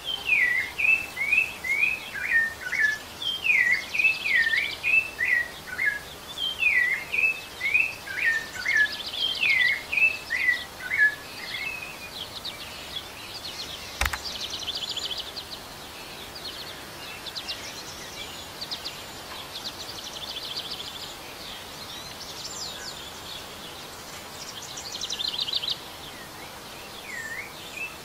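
Rufous-bellied thrush (sabiá-laranjeira) singing: a loud run of quick, slurred whistled notes for the first dozen seconds, then softer, higher trills and twitters. A single sharp click comes about halfway, and the loud whistled notes return near the end.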